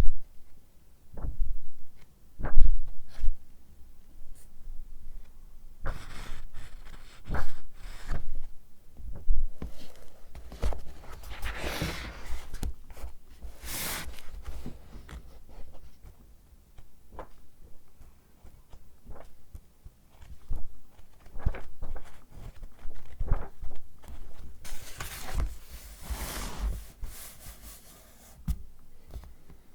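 Close-miked handling of paper packaging: scattered light taps and knocks, with bursts of crinkling and rustling around the middle and again near the end.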